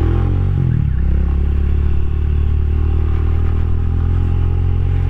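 Rusi Classic 250's single-cylinder LX166FMM engine running under way: its pitch climbs in the first half-second, drops back, then holds steady.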